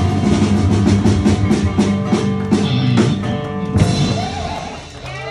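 Live band with a drum kit and electric guitar playing a country-rock song, with regular drum hits. The music thins out and dies down near the end.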